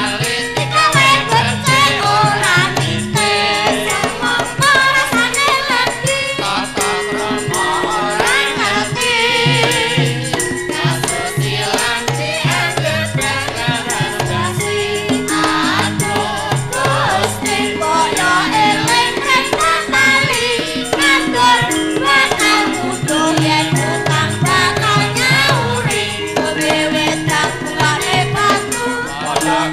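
Javanese gamelan ensemble playing, with female and male singers singing over it. The voices waver with a marked vibrato.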